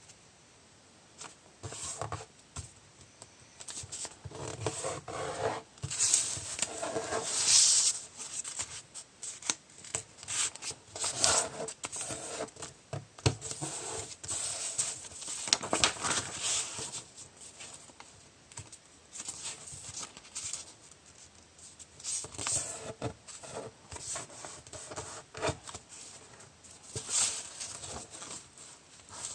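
A sheet of paper being handled, folded and creased by hand: irregular rustling and rubbing in clusters, with sharp crinkles and taps where the folds are pressed flat.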